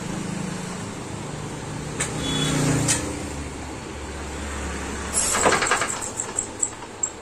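A Vijay Villiers MK12 single-cylinder engine running with a steady low hum. About five seconds in comes a quick run of sharp knocks that slow and fade as the engine dies.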